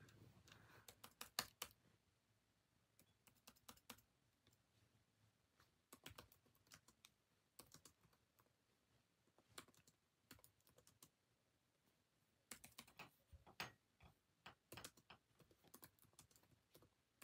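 Faint typing on a keyboard: irregular runs of light key clicks separated by short pauses.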